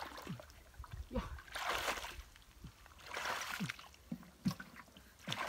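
Muddy shallow pond water sloshing and splashing around a person wading and working with their hands, in three or four separate bursts.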